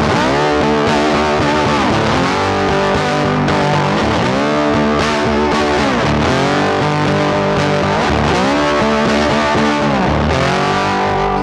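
Background music laid over the footage: a loud, continuous track with pitched notes that slide up and down.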